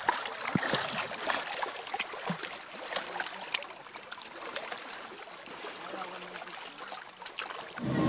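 Small waves of the Dead Sea lapping and trickling over rocks at the shore, with many little splashes and clicks.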